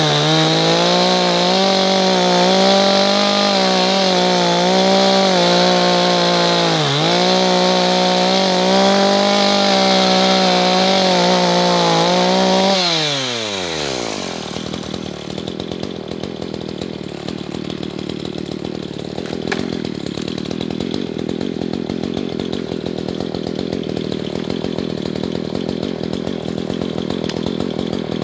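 Two-stroke gas chainsaw running at full throttle while cutting through a log, its pitch dipping briefly under load about seven seconds in. About thirteen seconds in the throttle is released, the engine note falls away, and the saw idles steadily for the rest.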